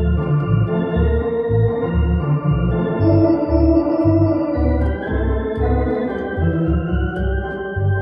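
Viscount Legend drawbar organ playing a tune, with held chords over bass notes that sound about twice a second.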